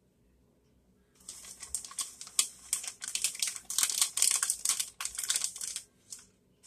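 Plastic bag of shredded cheese crinkling as a hand reaches in and sprinkles cheese over pasta: a dense, irregular run of crackles starting about a second in and stopping about a second before the end, with one short crackle after.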